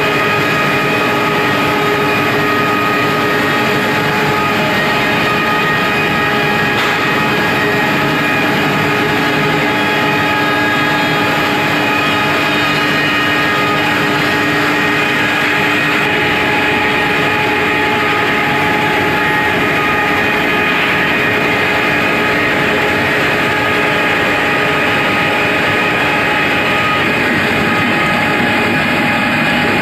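Wood pellet production line running at full working load: the pellet mill, conveyors and electric motors make a steady, unchanging machine drone, with several constant whining tones over a dense mechanical noise.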